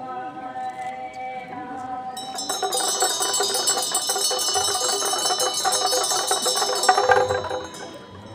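Tibetan Buddhist ritual music. A bright, rapid metallic ringing of struck metal percussion starts about two seconds in, swells to its loudest near the end, then stops, over steady held notes.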